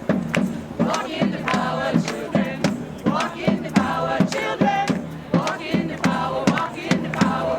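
A crowd of protesters singing or chanting together over a steady drumbeat of about three beats a second.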